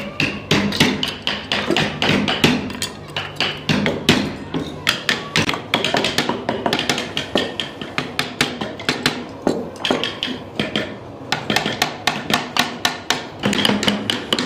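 A wooden mallet striking the handles of carving gouges, driving them into wood in quick taps about three times a second, with a couple of short pauses.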